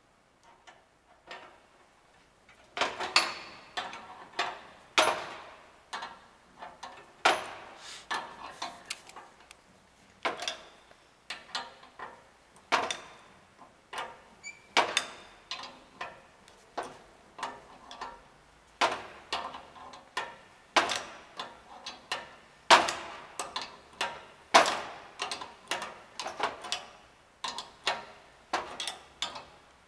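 Steel wrench clicking and clinking on the brass flare nuts of a refrigeration solenoid valve as it is refitted and turned to tighten the flare joints: irregular sharp metallic clicks, one or two loud ones a second with lighter ticks between, starting about three seconds in after a few faint ones.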